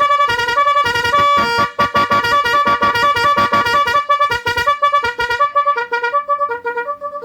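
Electronic multi-tone echo car horn playing a tune of short, fast-repeating beeping notes that step up and down in pitch, fading away near the end.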